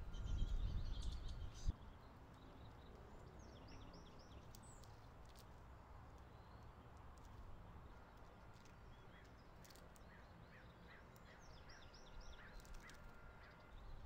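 Small birds chirping here and there against a quiet outdoor background, including a run of short, evenly spaced notes about two a second late on. Wind rumbles on the microphone for the first couple of seconds, ending with a single sharp tap.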